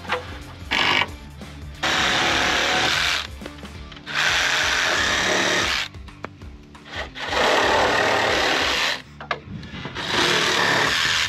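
Cordless drill driving screws into wooden roof purlins, in five runs: a brief one near the start, then four of one to two seconds each with short pauses between.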